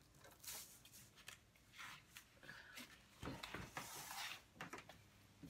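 Faint rustling and crinkling of a clear mylar sheet being handled and lifted off the printing table, louder for a second or so past the middle.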